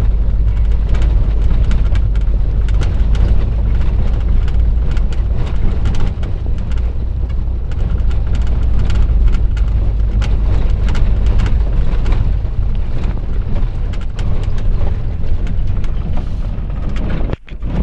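Vehicle cabin noise while driving over a rough gravel road: a loud, steady low rumble with constant rattles and knocks from the body and the stones under the tyres. The sound cuts out briefly near the end.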